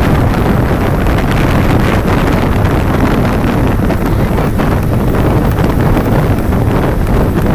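Wind buffeting the microphone of a motorcycle being ridden, a loud, steady rush.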